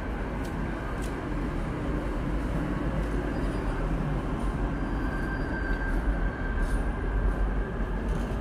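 Articulated electric tram passing close by on street track: a steady rumble of wheels and running gear, with a faint high wheel squeal a little past the middle as it rounds a curve.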